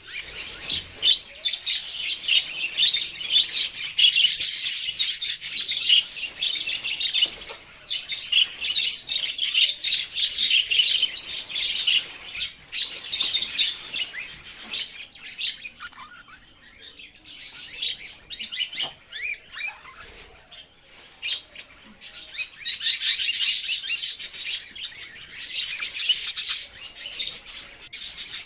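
Budgerigar chattering in a fast, dense run of high chirps. It thins to sparser calls for several seconds past the middle, then picks up again near the end.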